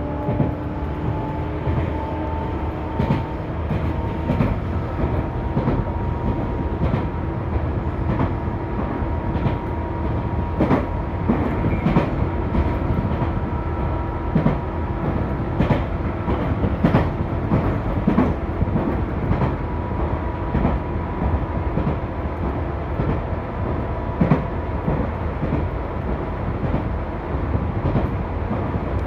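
Running sound of a Tobu 10000-series electric train car, MoHa 11201, under way between stations: the field-chopper-controlled DC compound-wound traction motors give a steady hum with a faint tone that rises slowly with speed, over the rumble of the wheels. The wheels click over rail joints many times at uneven spacing.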